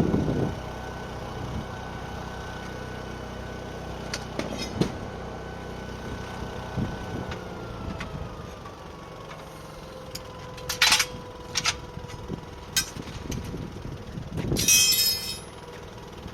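A machine running steadily, its whine sliding down in pitch a little past the middle, with a few sharp knocks and a clatter of metal near the end.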